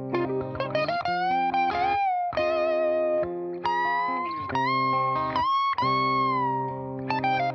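Electric guitar played through kit-built BYOC effects pedals: a slow lead line of held notes, several bent up into pitch and shaken with vibrato, over lower sustained notes.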